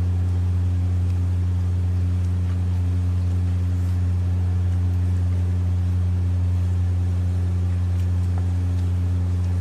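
Steady low electrical hum with no change in pitch or level, and nothing else standing out above it.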